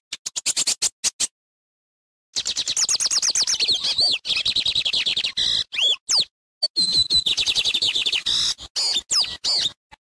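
Lined seedeater (bigodinho) singing: a short burst of rapid dry notes, then after a pause a long, fast, high twittering phrase with a few slurred whistles in it, broken by a brief gap just past the middle.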